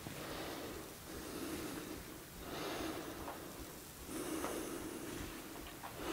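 A person breathing heavily close to the microphone: several slow, noisy in-and-out breaths, about one every second and a half.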